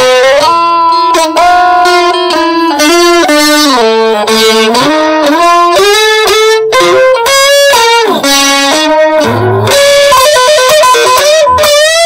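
Electric guitar playing a lead melody of held notes, with pitch slides and string bends between notes and a wide vibrato near the end.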